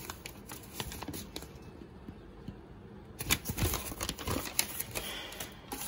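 A paper invoice rustling and crinkling as it is handled and folded, with scattered small crackles and clicks that are busiest about three seconds in.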